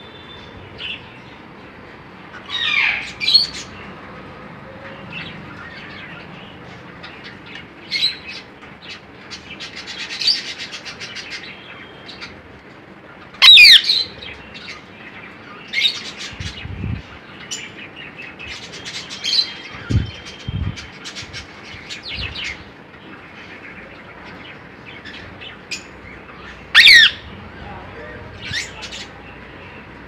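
Pet cockatiels calling on and off: scattered chirps and short calls, with three loud, shrill calls spread through, the loudest about halfway and near the end, and a stretch of rapid chatter before the middle. A few dull low thumps come in the second half.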